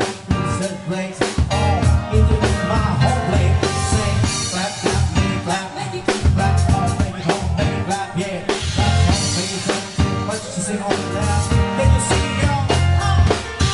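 Live band playing a dance medley: electronic keyboard over a steady drum beat and heavy bass, with a singer's voice in places.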